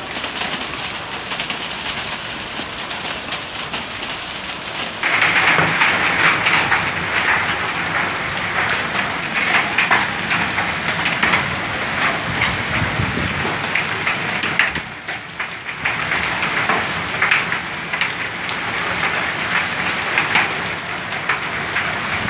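Heavy hail mixed with rain falling, a dense patter of countless small ice and water impacts. It gets abruptly louder about five seconds in and dips briefly about two-thirds of the way through.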